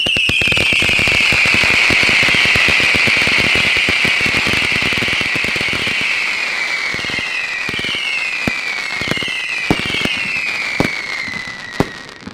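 Röder Crackling Screamer firework going off: a loud screaming whistle that falls in pitch over a steady crackle. About seven seconds in, several shorter falling whistles follow one after another, with a few sharp cracks as it dies away near the end.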